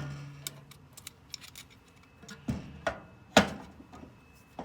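Small metal clicks and a few sharper knocks from drill bits and tools being handled while a drill bit is changed for the next size up.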